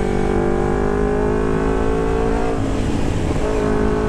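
Carbureted Kawasaki Ninja 250 parallel-twin running through an aftermarket Termignoni exhaust under way, its note climbing slowly in pitch. The note breaks up briefly about two and a half seconds in, then settles back to a steady run near the end.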